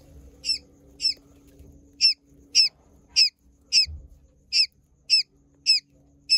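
Quail chick peeping: a short, high call repeated about every half second, with one brief pause about a second in.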